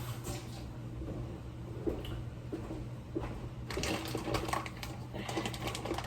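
Kitchen handling sounds over a steady low hum: from a little past halfway, a rushing, clattering stretch of many small clicks, as of rice or water being handled at a pot.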